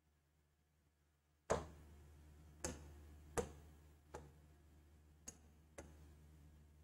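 Six sharp taps on an interactive touchscreen whiteboard, irregularly spaced about half a second to a second apart, as on-screen menu options are selected; the first, about a second and a half in, is the loudest. A faint low hum runs under the taps.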